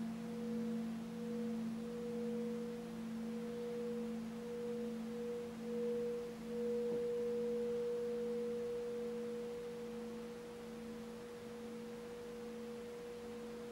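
Tibetan singing bowls ringing on in two low sustained tones, the higher one pulsing for the first six seconds or so and then holding steady, the whole slowly fading.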